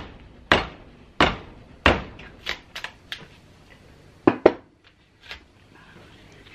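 Wood chisel being struck to split a block of wood clamped in a vise: three sharp blows about two-thirds of a second apart, then several lighter taps. Around four and a half seconds in come two sharp knocks as the chisel is set down on the wooden workbench.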